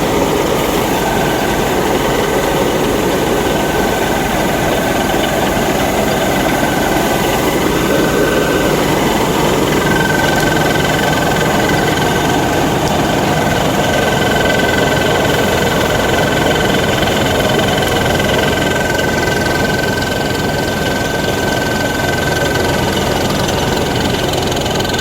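Large rice combine harvester's diesel engine running steadily under load, with a steady high-pitched whine on top of the engine noise, as it unloads grain into a truck.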